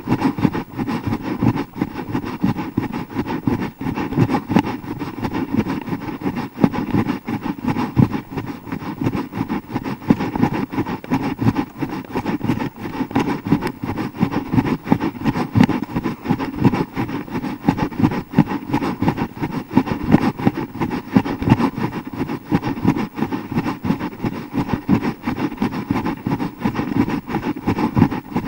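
Continuous rumbling noise from a YI 4K+ action camera's own microphone carried on a run, the mic jostled and buffeted with every stride, flickering rapidly in loudness.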